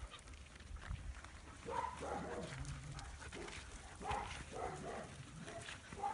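Dogs at play giving short yips and barks, in groups a little under two seconds in, around four to five seconds in, and again near the end.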